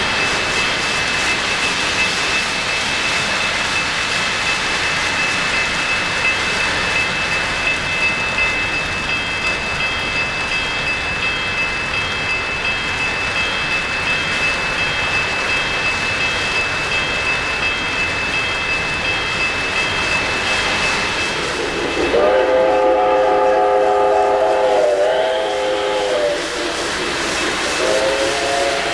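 O-gauge model train rolling along three-rail track, a steady running rumble with a thin high whine. About three-quarters of the way in, a diesel locomotive's onboard sound system sounds a chime horn in a long blast, with a second blast near the end.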